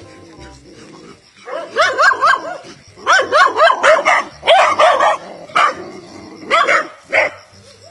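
Street dog barking at a person: quick runs of short barks, then a few single barks near the end.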